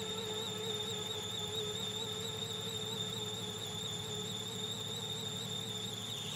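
Electric guitar fed through a Moog Grandmother semi-modular synthesizer and effects, holding one whistle-like electronic note with a steady, even wobble in pitch. Near the end a rushing noise begins to swell in underneath it.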